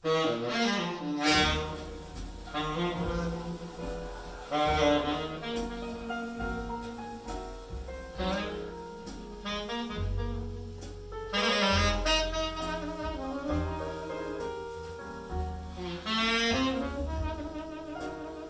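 Recorded music played through Yamaha NS-BP200 speakers driven by a Kenwood KA-791 amplifier: the instrumental opening of a song, with a lead melody over heavy bass notes. It starts suddenly at the beginning.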